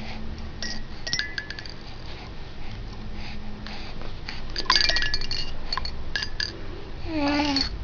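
Small cymbals clinking and ringing as a baby bats at them: irregular light strikes, the loudest cluster about five seconds in. Near the end the baby's voice comes in with a short babble.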